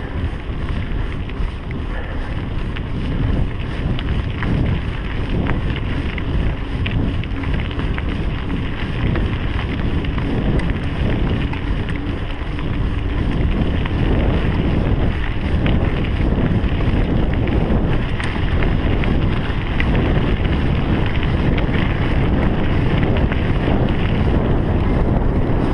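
Wind buffeting a GoPro's microphone on a moving mountain bike, a steady rumble with the crunch of tyres on a dirt track and small rattles and knocks from the bike. The rumble grows louder about halfway through.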